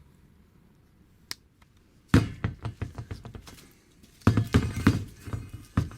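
Heavy metal engine parts knocking and clunking as a cylinder is handled and tried against an aluminium engine case half. A single light tap about a second in, then two runs of quick knocks, the second, after about four seconds, the louder.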